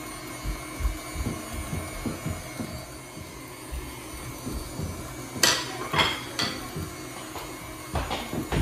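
Stand mixer running, beating cake batter in its steel bowl, with a steady motor hum. A few sharp clinks and knocks come in the second half, about halfway through and again near the end.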